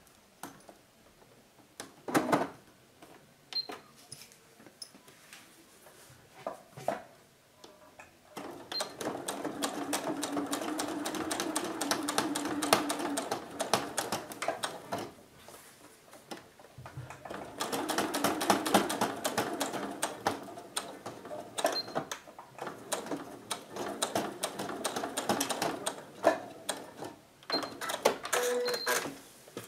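Domestic sewing machine stitching a seam in two runs of rapid, even needle strokes, the first starting about a third of the way in and the second after a short pause. A few clicks of handling come before and after.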